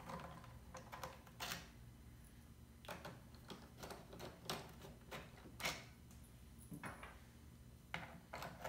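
Faint, irregular clicks and taps of a Torx screwdriver turning screws out of a plastic instrument-cluster housing, with small knocks of the tool and hands on the plastic.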